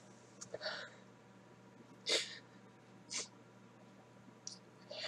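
A woman crying, sniffling and drawing short shaky breaths: about five brief sniffs, the loudest about two seconds in.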